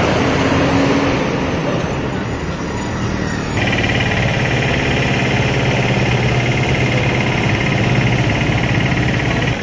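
Road traffic noise, then, after a cut a little over a third of the way in, a water tanker truck's engine running steadily.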